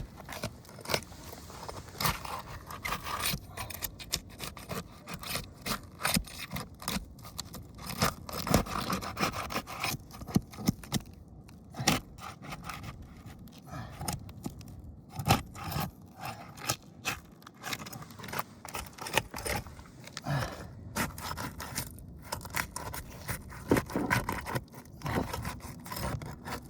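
A tool being worked under asphalt roof shingles, scraping and prying them up, with frequent irregular clicks and knocks.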